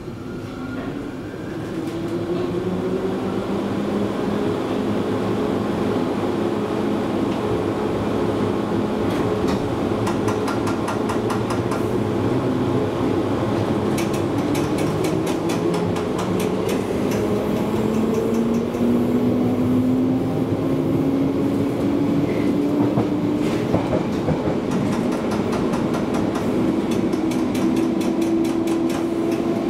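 Interior of a London Underground Bakerloo line train, 1972 Tube Stock, getting louder over the first few seconds as it pulls away, then running with a steady rumble. The motor whine climbs slowly in pitch, and the wheels click over rail joints, more often near the end.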